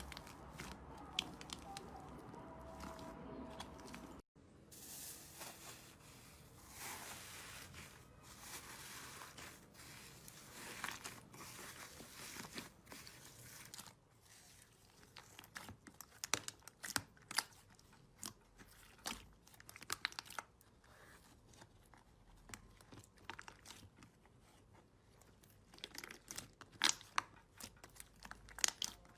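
Slime being squeezed and pressed by hand, crunching and crackling with tearing, crinkly sounds. The sound changes abruptly about four seconds in and again about halfway through, the later part a run of sharp, separate crackles.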